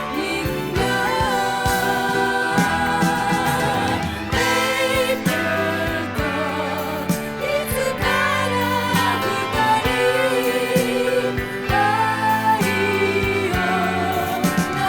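Late-1970s Japanese pop song: women's voices singing with wavering vibrato over a full band with bass and drums.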